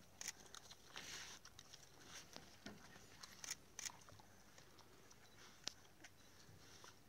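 African wild dogs biting and tearing at an impala carcass: faint, scattered sharp clicks and crunches over a near-quiet background.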